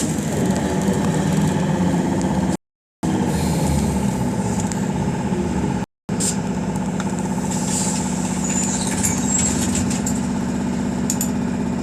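Interior drone of a BKM 221 electric trolleybus in motion: a steady hum with an even pitch. The sound cuts out completely twice for a moment, once about two and a half seconds in and again about six seconds in.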